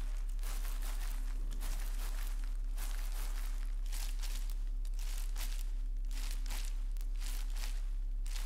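Irregular crinkling and crumpling, as of paper or thin plastic being handled, over a steady low hum.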